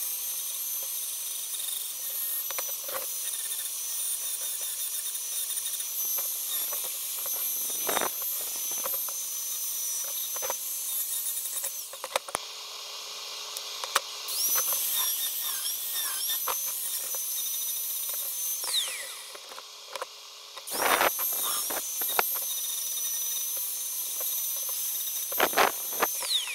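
Electric angle grinder with a sanding disc, running with a steady high whine as it grinds excess cured resin off fiberglass. Its pitch sags briefly when the disc bites. It winds down about nineteen seconds in and starts up again a couple of seconds later, with a few knocks along the way.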